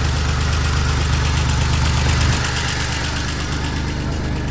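1989 Dodge Caravan's 3.0-litre V6 idling steadily shortly after a cold start, with a light, even valve tick.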